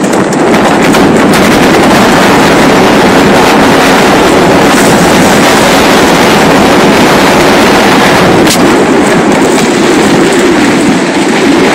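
Loud, steady wind buffeting a microphone held at the window of an SUV driving fast over rough pasture, with a few crackles and the vehicle's running noise beneath it.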